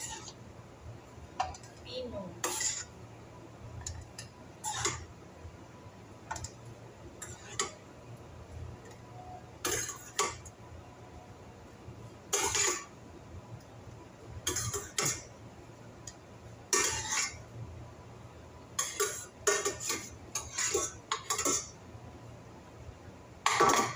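Irregular clinks and scrapes of a utensil against a stainless steel cooking pot and the glass bowl of an electric food chopper as cooked tomato sauce is spooned across, some coming in quick little clusters and the loudest near the end. The chopper's motor is not running.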